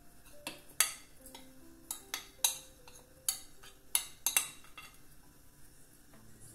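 A fork scraping and clinking against a glass bowl and the rim of an aluminium cuscuzeira as moistened cornmeal is knocked out into the steamer: about seven sharp clinks between one and four and a half seconds in.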